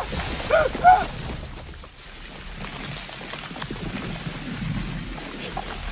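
Steady rustling hiss of tall dry grass being pushed through, with a short voiced sound in the first second.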